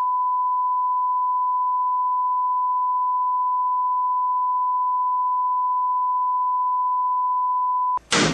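Steady 1 kHz sine-wave test tone, the reference tone played over colour bars, held unchanged for about eight seconds. It cuts off abruptly and is followed right at the end by a sudden loud hit.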